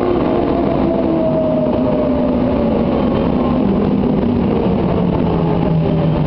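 Medellín Metro electric train pulling into the station and slowing, its motors whining in tones that fall steadily in pitch over the rumble of the wheels on the rails.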